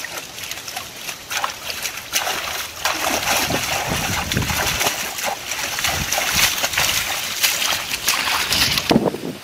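Hands splashing and sloshing in shallow muddy water, groping for fish by hand. The splashing grows louder and busier about two seconds in and stops abruptly near the end.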